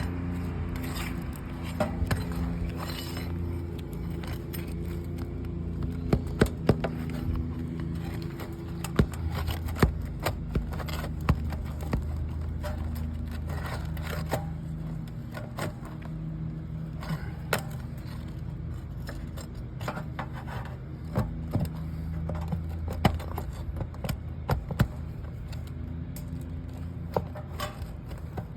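Pry bar scraping and clicking against old asphalt shingles and roofing nails as they are worked loose, in irregular sharp clicks and scrapes, over a steady low hum.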